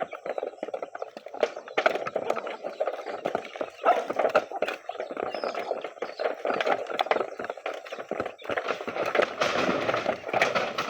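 Goats and fowls feeding on scattered feed: a rapid, irregular run of taps, clicks and rustles.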